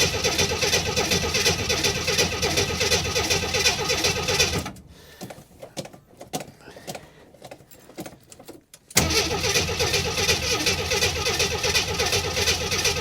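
Starter cranking the engine of a 1980 Jeep Cherokee Chief on a cold start after a year of sitting, turning over with an even rhythm but not catching. The first crank stops about five seconds in, and after a pause of about four seconds it cranks again.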